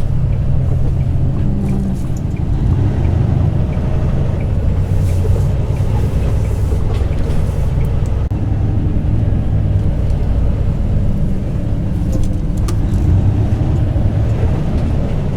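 Semi truck's diesel engine running steadily at low revs, heard from inside the cab as a constant low rumble.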